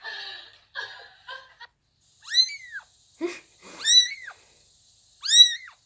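A kitten meowing: three high-pitched mews, each about half a second long, rising then falling in pitch. Before them, a few short bursts of stifled, breathy laughter.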